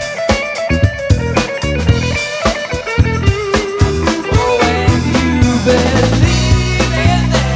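A band playing rock music: a guitar melody over a drum kit, with a bass part growing heavier about six seconds in.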